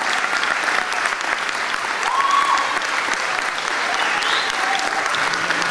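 Theatre audience applauding, dense steady clapping, with a few voices calling out over it.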